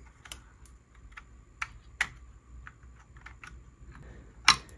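Scattered small plastic-and-metal clicks and taps as an M.2 SSD is pushed into its motherboard slot and its retaining screw is handled, with one sharper click near the end.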